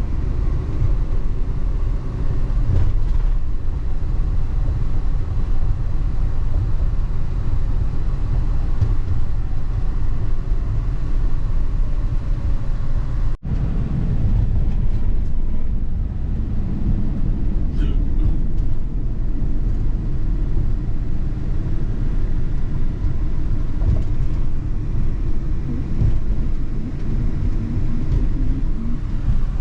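Car driving on the road: a steady low rumble of road and engine noise, which cuts out for an instant about halfway through.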